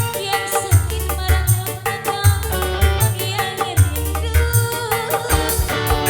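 Live dangdut music from an orgen tunggal keyboard band: an electronic keyboard melody over a steady, driving drum beat with deep bass thumps and quick high ticks.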